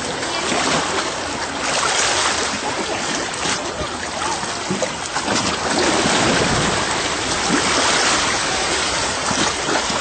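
Shallow seawater sloshing and splashing around a person wading and snorkeling: a steady, even rushing wash.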